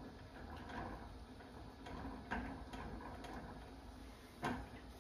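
Silicone spatula stirring a butter-and-flour roux in a small saucepan, scraping and lightly knocking against the pan, with a sharper knock near the end.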